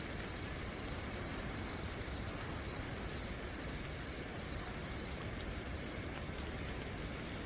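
Steady night rain, with crickets chirping in a fast even trill and a few drops ticking close by.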